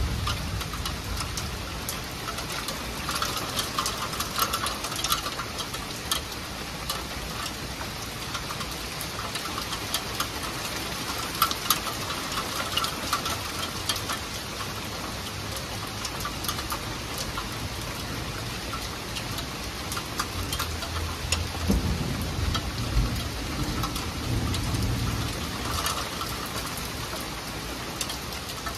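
Steady rain falling on trees and a wooden deck, with many sharp drop taps close by. A low rumble swells for a few seconds about three-quarters of the way in.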